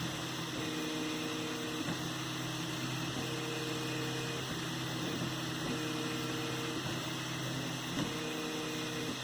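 3D printer running a print: stepper motors whining in steady tones that switch and change pitch every second or so as the axes move, over the constant hiss of its cooling fans.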